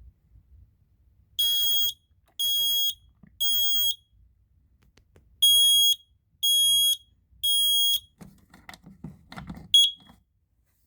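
Kidde i9010 battery smoke alarm sounding on test: two rounds of three shrill, high-pitched beeps in the temporal-three evacuation pattern, then a single short chirp near the end, with faint handling knocks just before it.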